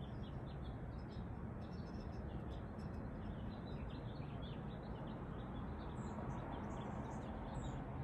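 Small birds chirping, with many short high chirps scattered throughout, over a steady low background hum.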